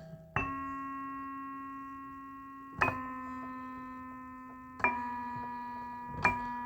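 Instrumental music: four single notes struck about two seconds apart, each ringing on and fading slowly.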